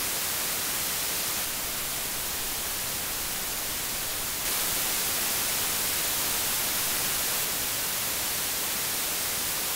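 Steady hiss of audio interface preamp noise floors turned up to maximum gain, switching between the IK Multimedia iRig Pre HD and the Rode AI-1. The level steps slightly up or down about every three seconds as one interface gives way to the next.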